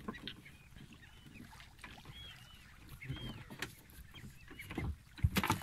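Hooked king mackerel splashing at the surface beside a small fishing boat, with water lapping the hull. Repeated short high rising-and-falling calls and a few knocks run through it, and the loudest knocks and splashing come about five seconds in.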